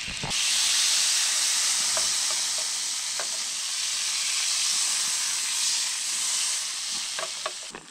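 Seasoned carne de sol (sun-dried beef rump) going into hot margarine in a frying pan: a loud frying sizzle starts suddenly just after the start and holds, with a few light clicks against the pan, then cuts off near the end.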